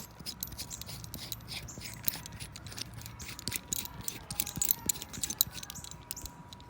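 Light metal chain and its hook and quick link clinking and rattling as they are handled and fastened: a string of small, sharp clicks that grows busier in the second half.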